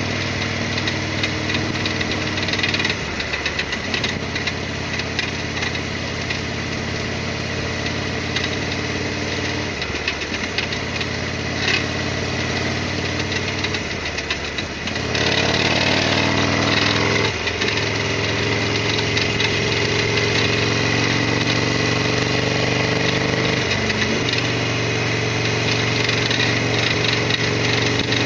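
Harley-Davidson Sportster XL1200's air-cooled 45° V-twin running under way, heard from the rider's helmet. The engine pitch drops and climbs again several times, about 3, 10, 15, 17 and 24 seconds in, and it gets louder after a rising sweep about halfway through.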